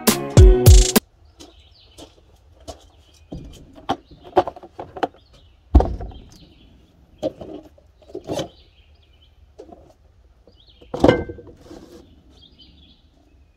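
Background music cuts off about a second in. Then cardboard boxes are set down and handled on a wooden tabletop: scattered knocks and taps, with two louder thumps near the middle and near the end, while birds chirp faintly.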